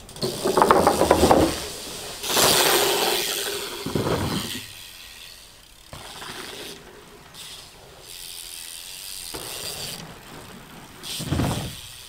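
An 18-inch Wethepeople BMX being ridden through a dirt-jump line: tyres rolling and scuffing on the ramp and packed dirt, and the bike rattling. There are loud stretches at the start and from about two to four and a half seconds in, quieter rolling between them, and a short loud burst near the end.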